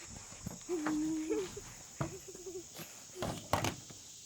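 A few footsteps or light knocks, with a brief wordless voice-like hum about a second in and a shorter one soon after.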